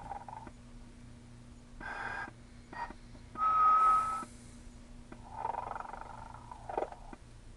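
Telco Snoring Santa motionette's snoring sound: rasping snore breaths alternating with a steady whistled tone, the cycle repeating every few seconds, over a faint steady hum.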